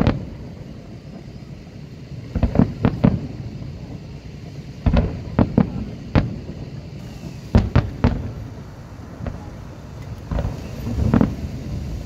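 Aerial firework shells bursting overhead in quick clusters of two to four bangs, a new cluster every two to three seconds.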